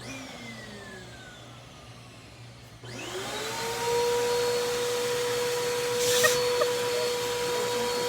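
Vacuum cleaner motor. A click and a fading, falling whine near the start, then about three seconds in the motor is switched on and its whine rises quickly and settles into a steady, loud running pitch.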